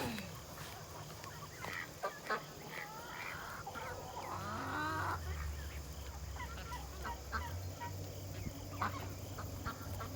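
Ducks calling in a pen, a scatter of short calls with a longer call about three to five seconds in.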